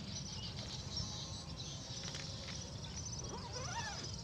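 Insects trill on steadily in fast, high pulses over a low background rumble. From about three seconds in a bird gives a short whistled phrase that rises and falls, fitting a yellow-vented bulbul (trucukan).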